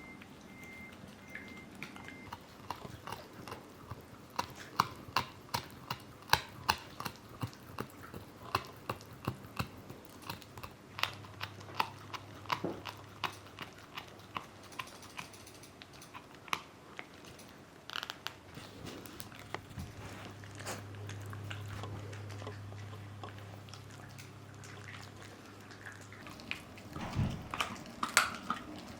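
A Shiba Inu chewing a dried Achilles-tendon chew: sharp, irregular crunching bites, sometimes several a second.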